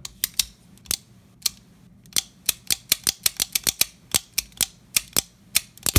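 Action of a Smith & Wesson pre-Model 10 .38 Special revolver being worked by hand: about twenty sharp metallic clicks, closer together in the middle, as the hammer is cocked and the cylinder turns and locks. The action is smooth, like a new gun.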